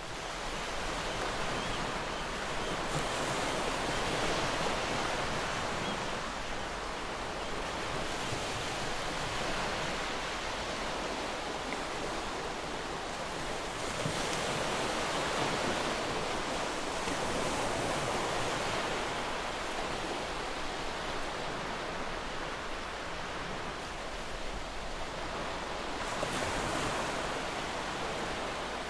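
Waterfall: a steady rush of falling water, swelling and easing slightly.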